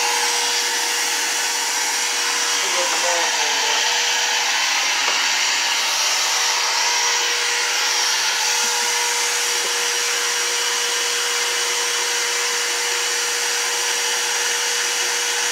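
Wet/dry shop vacuum running steadily: a constant rushing of air through the hose with a steady hum.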